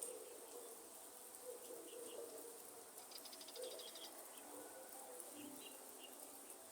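Faint rainforest ambience: a soft hiss of light rain with a steady high insect drone, scattered bird chirps, and a quick ticking trill about three seconds in.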